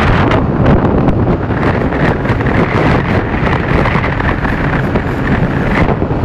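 Wind buffeting the microphone of a JonWay 50cc scooter riding at full throttle, with the scooter's engine running steadily at high revs underneath. The wind noise is loud and steady.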